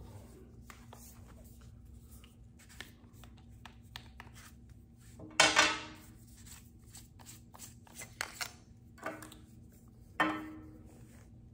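Handling noise from a handheld wireless microphone being turned over and worked on: scattered light clicks and taps, with a loud, short scrape about five and a half seconds in, a smaller one near eight seconds and another near ten seconds.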